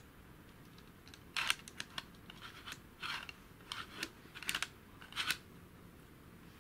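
Hard plastic parts of a Clementoni Mechanics helicopter model clicking and rattling as the model is turned in the hand, in a string of short clicks and little clusters lasting about four seconds.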